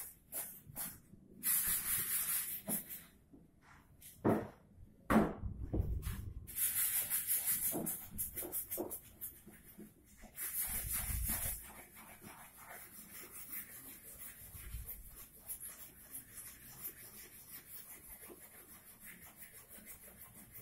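Wood being sanded by hand with sandpaper: bursts of quick, scratchy back-and-forth strokes with pauses between them, and a few knocks a few seconds in. The rubbing gets lighter and steadier in the second half.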